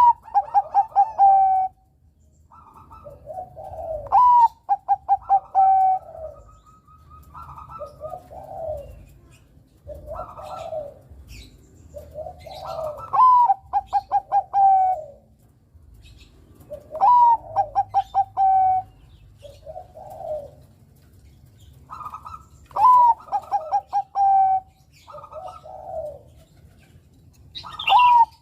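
Zebra dove (Bangkok-type perkutut) singing its cooing song. The phrase repeats about every four to five seconds: a rising note, then a quick run of short staccato coos, with softer, lower coos between phrases.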